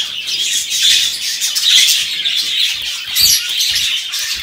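Many caged budgerigars and finches chattering and chirping at once in a dense, high-pitched din: the morning chorus of the flock as the covers come off their cages. A few soft low thumps come near the end.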